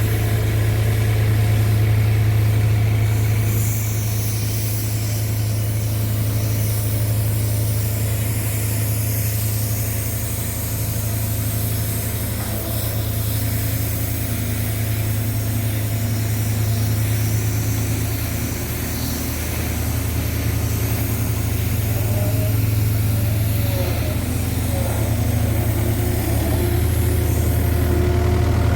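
Diesel engine of heavy road-construction machinery running steadily with a deep low hum, its loudness swelling and easing slightly.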